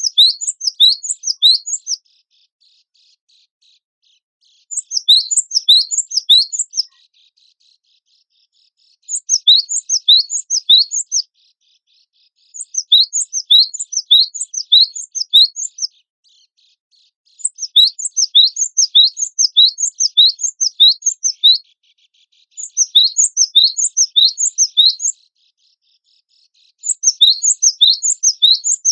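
Cinereous tit (gelatik batu, wingko type) singing in seven loud bouts of rapid, high, sharp repeated notes, each bout two to four seconds long, with short pauses between.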